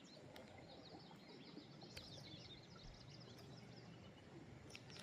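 Near silence outdoors, with faint, rapid bird chirps and twitters and a single light tick about two seconds in.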